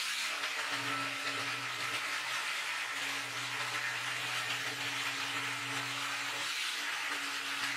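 Electric jigsaw running steadily and cutting as it is fed along an aluminium guide track, a continuous motor hum under a hissing, buzzing blade noise.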